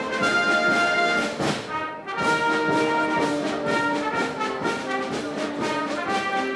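Brass band music: horns playing a tune over a steady beat, with a brief dip about two seconds in before the playing picks up again.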